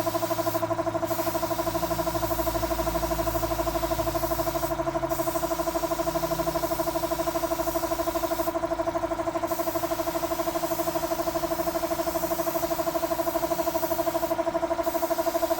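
A motor running steadily at constant speed, giving an even hum with a fast, regular pulse.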